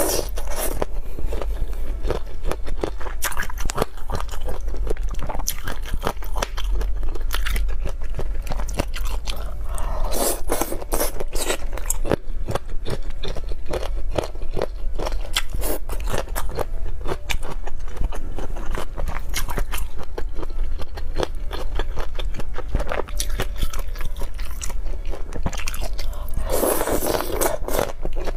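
Close-miked biting and chewing of spicy chicken feet: dense crunching and crackling of skin and cartilage, with louder stretches about ten seconds in and near the end, over a steady low hum.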